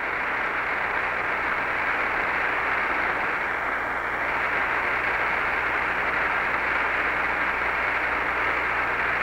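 Steady hiss of an open air-to-ground radio voice link between transmissions, with a faint low hum under it.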